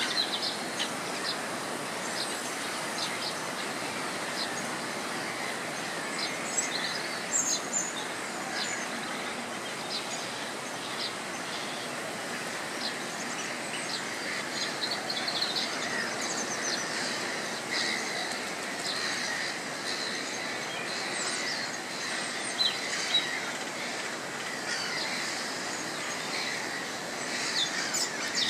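Many birds chirping and calling over a steady background noise.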